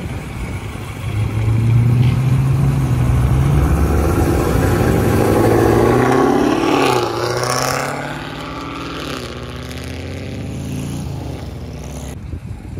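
A car's engine running loudly as it passes. The engine pitch drops about seven seconds in, and the sound then settles lower.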